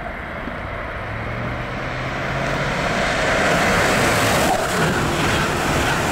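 Amtrak Siemens ACS-64 electric locomotive and its coaches passing at high speed: a rush of wheel and air noise that grows louder over the first few seconds and stays loud as the cars sweep by.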